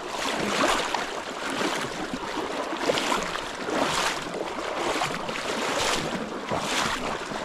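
Stream water rushing and splashing against a wading angler's legs as he wades through a fast current, swelling in surges about once a second.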